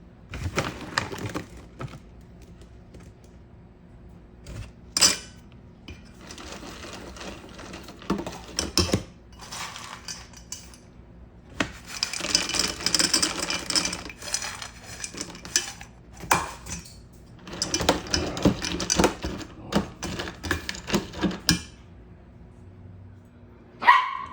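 Irregular clattering and clinking of hard objects being handled, with scattered sharp clicks. It comes in two denser spells, about halfway through and again a few seconds later, and ends with a sharp, louder click.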